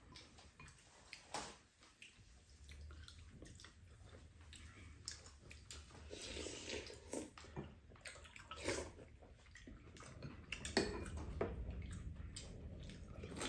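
Close-up eating sounds from two people at a table: chewing and slurping of stir-fry and soup, with chopsticks and spoons clicking against bowls and the pan now and then.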